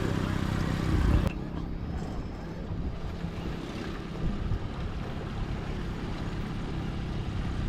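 A fishing boat's motor running steadily while trolling, with wind on the microphone and choppy water around the boat. About a second in, the loud wind hiss cuts off abruptly and a lower, steadier rumble carries on.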